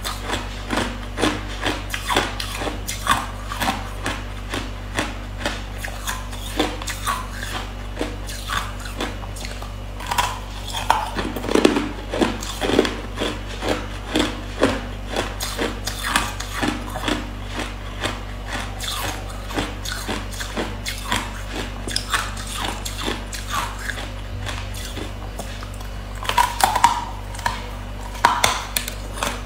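Hard ice chunks being bitten and chewed, a run of sharp cracks and crunches a few times a second, busiest near the end.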